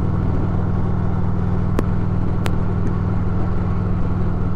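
Harley-Davidson touring motorcycle's V-twin engine running steadily at cruising speed, heard from the saddle with wind rush over the fairing. Two brief clicks about two seconds in.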